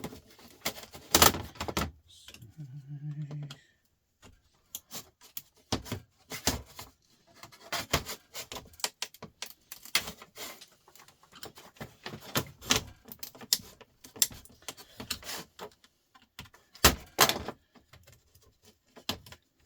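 Hand dismantling of a TV/DVD set: irregular clicks, knocks and scraping as tools and fingers work plastic and metal parts loose, with a few sharper clacks standing out.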